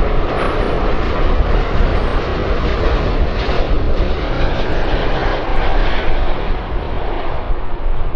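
Jet engines of a large airliner on its landing approach: a loud, steady rushing noise over a deep rumble.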